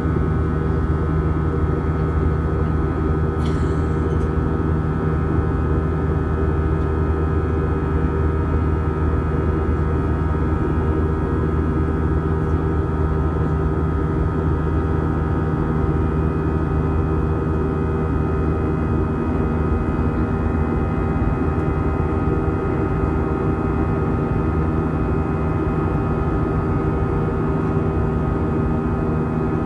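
Steady cabin noise of an Airbus A320 in flight: the jet engines and rushing air running evenly, with several steady humming tones.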